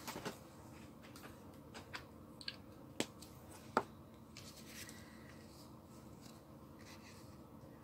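Faint paper handling on a craft table: soft rustling as a layered paper collage piece is picked up and laid on a journal page, with a few short sharp taps, the two loudest about three and four seconds in.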